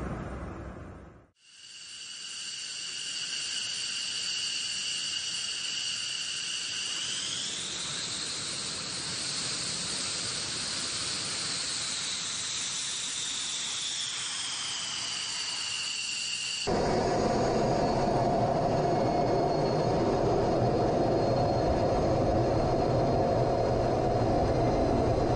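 F-15 fighter's jet engines whining on the ground, the high whine rising in pitch about seven seconds in, holding, then falling back near fifteen seconds. About seventeen seconds in, a louder, deeper jet engine noise heard from the cockpit takes over as the jet runs at high power down the runway.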